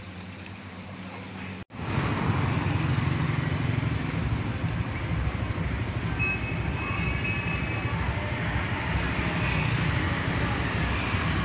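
Steady noise of a moving vehicle, starting suddenly after a cut about a second and a half in.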